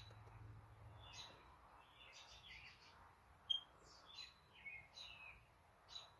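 Faint bird chirps: a few short, irregular high calls over near silence, the sharpest about three and a half seconds in.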